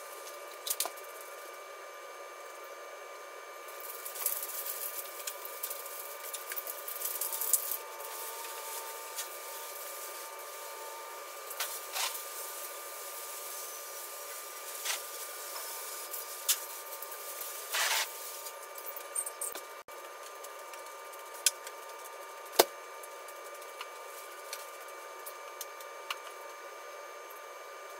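Scattered clicks and knocks with short scraping stretches from cleaning out dog kennels, over a faint steady hum. The sharpest knock comes about two-thirds of the way in.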